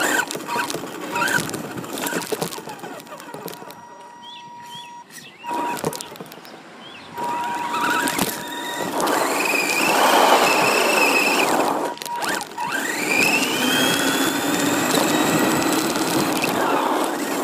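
RC car driving with the microphone on board: a motor whine that rises in pitch as it speeds up past the middle, over a rough rumble of the wheels on the ground with many knocks and bumps.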